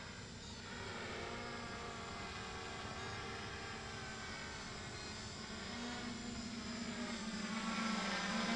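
Hexacopter rotors whirring in flight: a steady, many-pitched buzz that grows louder over the last few seconds as the craft flies closer.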